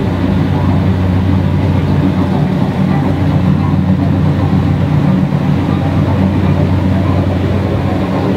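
Loud, steady, low mechanical rumble with a droning hum, unchanging throughout.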